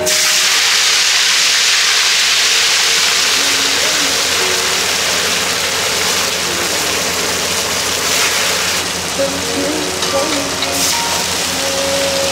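Wet food dropped into a wok of hot oil, deep-frying with a loud sizzle that starts all at once and slowly settles as the oil foams up.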